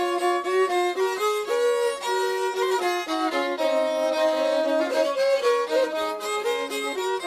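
Fiddle music: a bowed fiddle playing a melody of quickly changing notes, with a longer held note in the middle.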